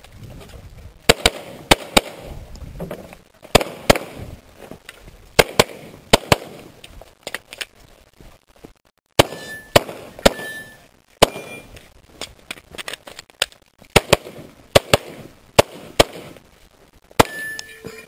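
Glock 17 9mm pistol being fired: about two dozen sharp shots, mostly in quick pairs, with pauses of a second or more between pairs as the shooter works through a timed competition stage.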